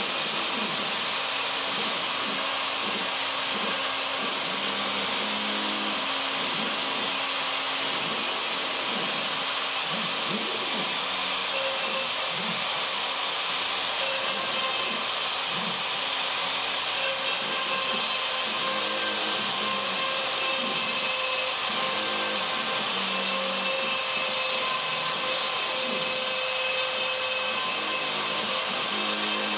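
Craftsman 12A 2 hp router on a CNC Mogul machine running steadily while its bit cuts grooves in a cedar fence picket. It makes a constant high whine and hiss, with lower tones that keep shifting as the machine moves along the cut.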